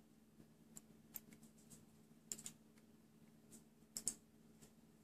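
Faint, scattered clicks of a small metal hand tool working the coil and its trimmed wire leads on a rebuildable atomizer deck, a few of them in quick pairs, over a low steady hum.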